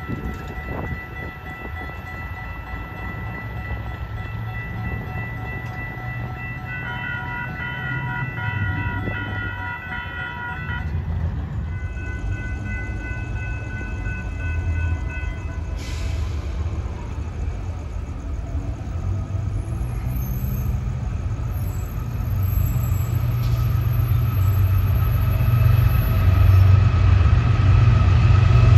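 Diesel locomotive horn sounding at a distance, with steady chord tones, then the low engine rumble of an approaching freight train led by GE Evolution-series locomotives, growing louder near the end.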